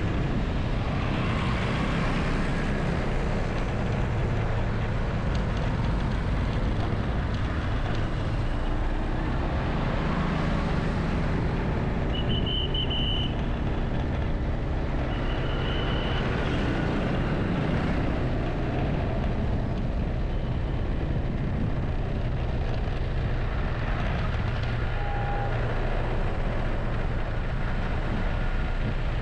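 Steady city traffic noise heard from a moving vehicle: a low engine and road rumble from motorbikes and cars. Two short, high beeps sound, about twelve and fifteen seconds in.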